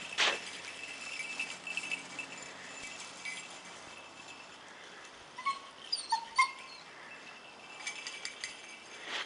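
Rabbit hound giving a few short, high yips and whimpers about halfway through while working the scent. There is a single crunch in the snow at the very start.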